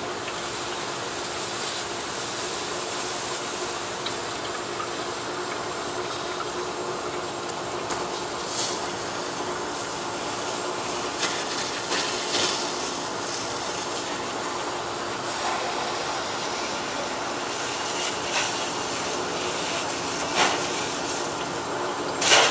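Steady rushing of water from fire hoses with a constant hum underneath, from a fire engine's pump, as firefighters wet down the smoking remains of a fire. A few short knocks and clacks stand out, the loudest near the end.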